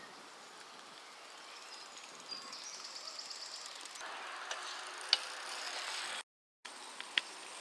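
Faint open-air ambience with a short run of quick, even ticking typical of a bicycle freewheel coasting, and a few sharp single clicks. The sound cuts out completely for a moment about six seconds in.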